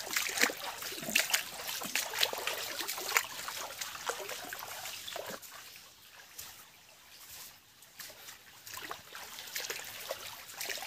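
Footsteps and brushing through undergrowth beside a shallow forest stream: irregular crackles and light splashes. They pause for a couple of seconds in the middle.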